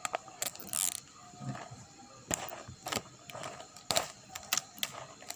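Plastic packaging being torn open and crinkled by hand: irregular sharp crackles and short rips, the longest about half a second to a second in.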